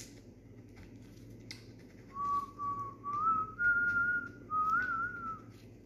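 A person whistling a slow tune of about five clear notes that step upward, starting about two seconds in, the last note wavering.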